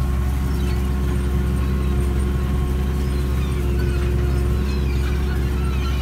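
Massey Ferguson 8690 tractor's six-cylinder diesel running steadily under ploughing load, heard from inside the cab, with a steady whine over the engine drone.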